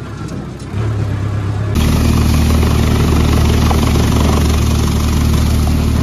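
Sonalika tractor's diesel engine running as it drives over the field. About two seconds in, this cuts to the louder, steady drone of a tractor-driven thresher at work while soybean plants are fed into it.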